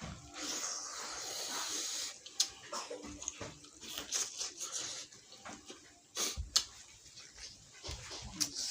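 Close-up eating sounds: wet slurping and chewing of a spicy fish-head curry, with a few sharp clicks along the way.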